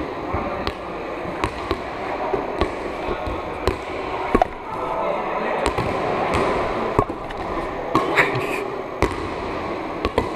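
Balls being set and caught by several pairs at once: irregular slaps of ball on hands and bounces on the floor in a large sports hall, over a background murmur of voices.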